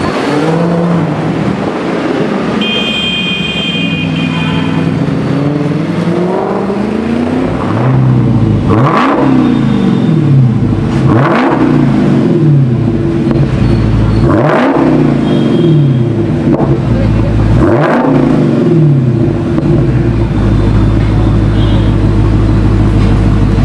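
Dodge SRT Hellcat's supercharged V8 pulling away at low speed, then settling to a steady idle and revved four times in quick blips, the pitch shooting up and dropping straight back each time.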